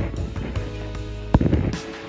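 Background music with held notes, and one sharp knock a little over a second in.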